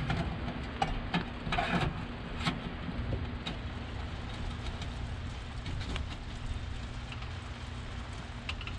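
A steady low hum, with light clicks and knocks clustered in the first three seconds and a few more near the end.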